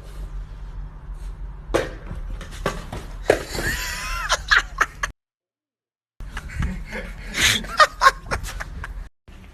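People laughing in short bursts over a steady low hum, broken by about a second of dead silence in the middle.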